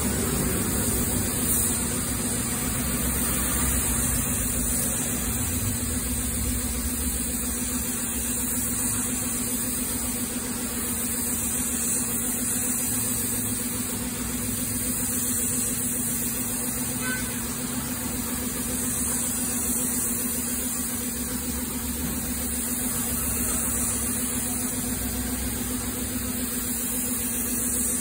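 Compressed-air gravity-feed spray gun hissing steadily as it sprays paint, with a steady low hum underneath.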